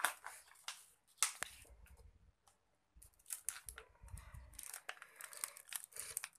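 Plastic crinkling and rustling in short, irregular bursts as a crushed plastic water bottle and a strip are pressed and wrapped around a bare foot to make a makeshift sandal.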